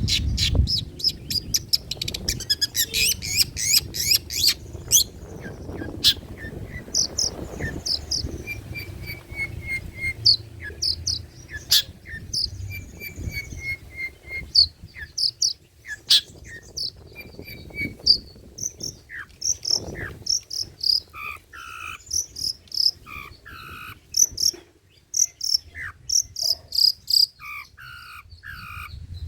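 Long-tailed shrike singing a varied, fast song of sharp chirps, rapid repeated notes and trills, strung together from mimicked calls of other birds.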